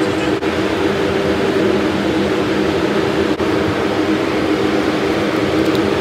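Steady whooshing of a ventilation fan, with a faint low hum.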